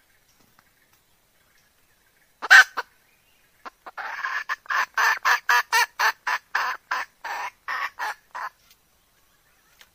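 Red junglefowl hen calling, a hen call used as a hunting lure. There is one loud squawk about two and a half seconds in. About a second later comes a run of quick, evenly spaced clucks, about three or four a second, lasting about five seconds.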